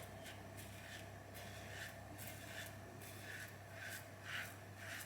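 Safety razor (Karve CB with a Polsilver Super Iridium blade) scraping through lathered stubble in short, faint strokes, about two a second, starting a second or so in.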